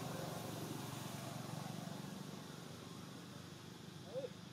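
A distant motor vehicle's engine running as a steady low rumble that slowly fades, with one short chirp about four seconds in.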